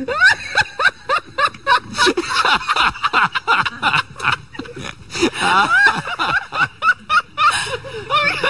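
Laughter: short repeated snickers and chuckles.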